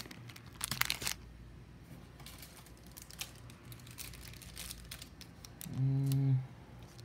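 Plastic snack wrappers crinkling as packets are handled and set down, with a couple of louder rustles in the first second and lighter scattered rustles after. Near the end, a brief low hum from a person's voice.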